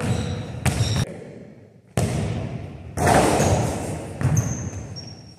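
A basketball bouncing on a hardwood gym floor: four sharp bounces, each echoing in the big hall, the loudest about three seconds in. Sneakers squeak briefly on the floor.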